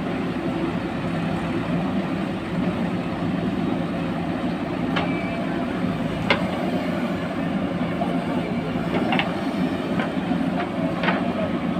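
JCB 3DX backhoe loader's diesel engine running steadily under load as the backhoe digs, swings and dumps soil. Sharp metallic knocks from the bucket and boom come about five times.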